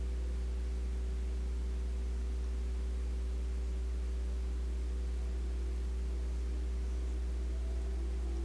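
Steady low electrical mains hum with an even hiss over it and a few faint higher steady tones; nothing else happens.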